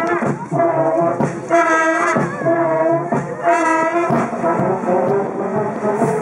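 Brass marching band playing a march, with held notes that change every half second or so.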